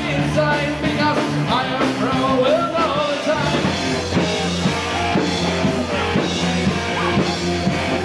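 Hard rock band playing, with bass and drums under a gliding lead melody for the first three seconds, then a steady beat.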